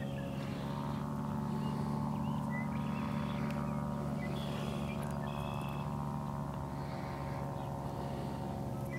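Steady drone of a running motor, holding one pitch throughout, with faint short high chirps scattered over it.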